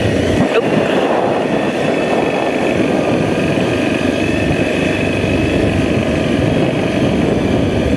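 Enduro motorcycle engine running steadily as the bike rides along a dirt trail.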